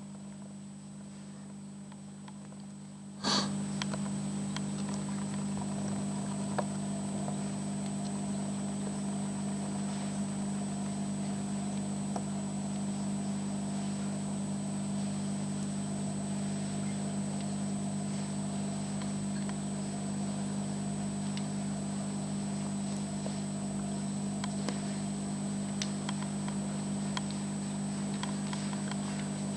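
Steady low hum of running aquarium equipment with a thin high whine above it. A sharp click about three seconds in, after which the hum is louder, as if a pump switched on. A few faint ticks follow.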